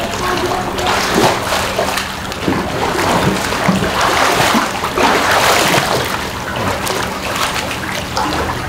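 Pool water splashing and sloshing irregularly as people wade and swim through it, heaviest about halfway through.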